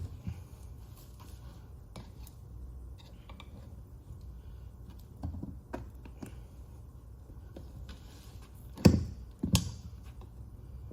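Small tire irons clicking and knocking against a 10-inch dirtbike wheel rim as the tire bead is levered on by hand, with two louder knocks about nine seconds in.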